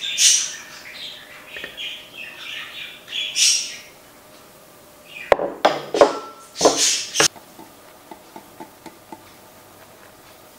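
Kitchen prep sounds of utensils and dishes. Light scraping with small chirp-like squeaks comes first. Then a quick clatter of knocks about five to seven seconds in, with one short ringing clink, followed by a few faint light taps.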